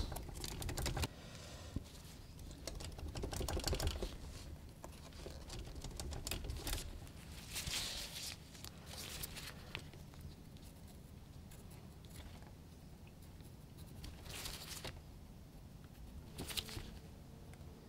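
Faint handling noises: a pencil scratching marks through the punched holes of a leather strip on steel armor, with small clicks and soft rustles as the leather, tape and plates are moved about.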